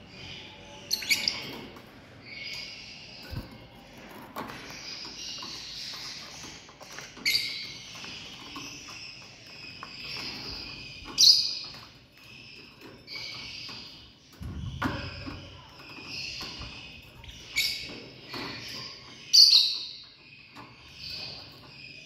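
Lovebird chattering steadily in high, scratchy twitters, broken several times by loud, sharp shrill calls. A soft thump comes about two-thirds of the way through.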